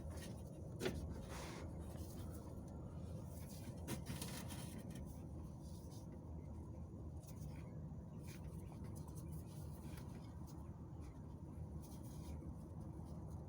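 Faint scraping and a few light clicks of hands and fingers working a rubber O-ring into the oil cooler's groove, over a low steady hum.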